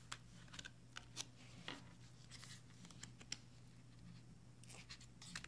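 Faint, irregular clicks and short rustles of oracle cards being thumbed over one by one in the hand.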